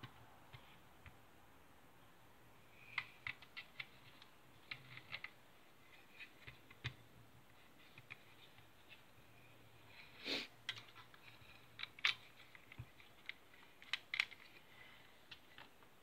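Small irregular clicks and taps of an airsoft rifle receiver and its small parts being handled and fitted by hand, as a magazine catch block is installed. A few louder knocks come in the second half.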